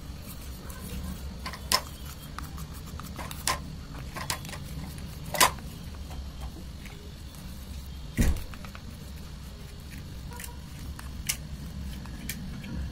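A plastic spoon stirring thick white glue in a plastic bowl, giving scattered sharp clicks and taps as it knocks and scrapes the bowl, over a steady low hum.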